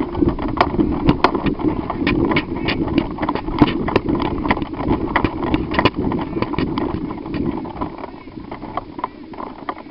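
Footsteps and clattering gear of someone moving on foot: many irregular clicks and knocks over a steady low rumble.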